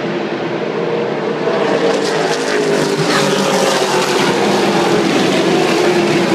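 Stock car racing engines running hard at speed, growing louder from about two seconds in as the cars come past.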